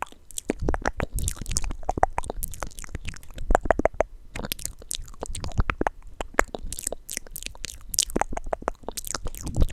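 Close-up tapping and handling of small plastic blind-box figures and their packaging: a dense, irregular run of sharp clicks and taps.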